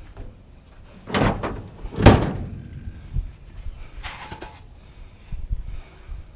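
Heavy items being loaded onto a truck: a series of loud thuds and knocks, the loudest about two seconds in, with a few lighter knocks after.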